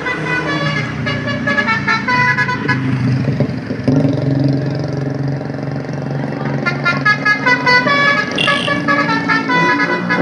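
Bus's Basuri telolet musical air horn playing a fast melody of short stepped notes, with a low steady drone underneath.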